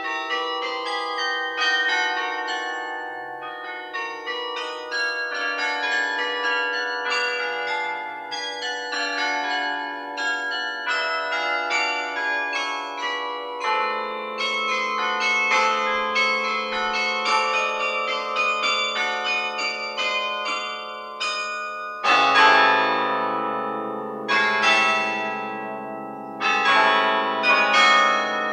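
Carillon bells played from the baton keyboard: a run of struck bell notes with long, overlapping ringing. About 22 seconds in a loud chord enters with deep bass bells added, and another strong chord is struck near the end.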